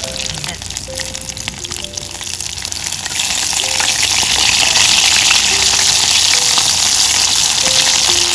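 Karaage (pieces of chicken) deep-frying in hot oil in a wok: a dense sizzle full of small crackles that grows louder about three seconds in.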